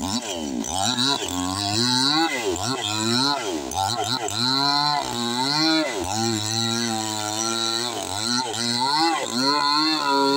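Petrol chainsaw revving up and down over and over, its pitch rising and dropping back about once a second, as it cuts into the crown of a felled coconut palm.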